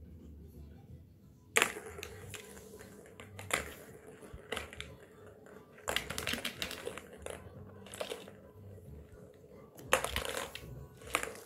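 Plastic balls rattling and rolling around the rings of a three-tier ball-track tower toy as a kitten bats at them, in irregular bursts of clatter with sharp clicks.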